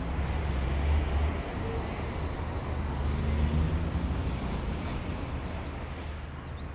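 Street traffic: a steady low rumble of passing vehicles that swells and eases, with a faint high whine for a couple of seconds near the end.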